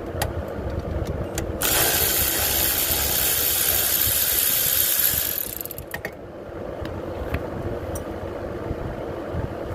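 Cordless ratchet running for about four seconds, spinning out a rear brake caliper bolt, then a few light metal clicks of tools. A steady fan rumble runs underneath.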